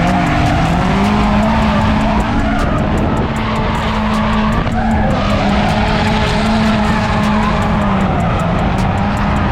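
Drift cars' engines held at high revs with small rises and dips in pitch, over the hiss and squeal of sliding tyres.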